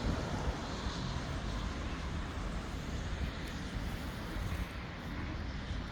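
Steady low rumble and hiss of a moving vehicle, with no engine note.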